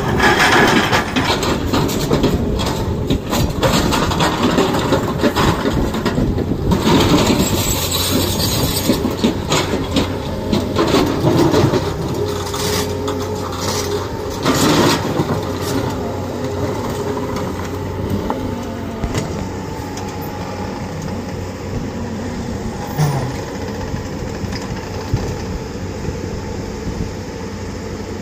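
Heavy diesel machinery in a rock quarry: excavator and dump-truck engines running, with irregular loud clattering knocks of rock through roughly the first half. After that the engines drone on more steadily.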